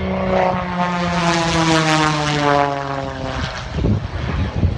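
A 350-horsepower aerobatic propeller plane flying past. The engine and propeller drone is loudest about two seconds in and slides steadily lower in pitch as the plane goes by. It gives way to low rumble near the end.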